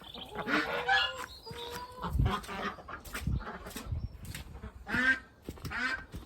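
Several domestic ducks giving a string of short, repeated quacks, an alarm call.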